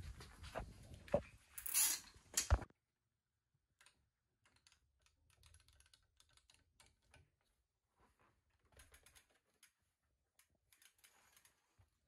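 A few sharp clicks and a short hiss in the first three seconds, then near silence with faint scattered clicking.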